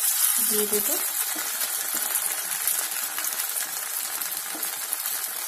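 Hot refined vegetable oil in a kadai sizzling as a lump of sabudana pakora batter is dropped in by hand; the hiss starts suddenly and goes on steadily as the batter begins to deep-fry.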